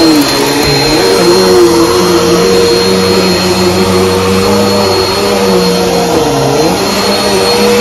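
Bagless upright vacuum cleaner running on carpet, a loud steady rush of air with a motor hum whose pitch dips briefly a couple of times.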